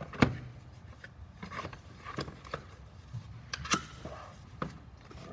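Handling noises at a workbench: a scatter of sharp clicks and light knocks as hands move gear about, the loudest just after the start and another about two-thirds of the way through.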